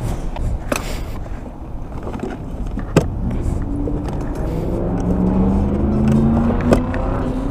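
Sharp click about three seconds in and a lighter one near the end as the motorcycle's hard saddlebag latch and lid are worked, over a steady low traffic rumble. A car engine rises slowly in pitch in the second half.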